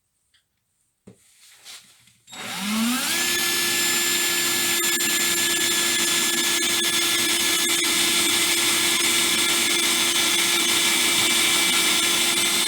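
Electric drill starting about two seconds in, speeding up over about a second, then running steadily with a constant whine while drilling a hole in the top of an aluminium tin can; it stops at the very end.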